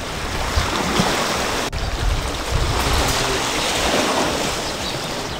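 Steady outdoor wash of sea water and wind, with no distinct events.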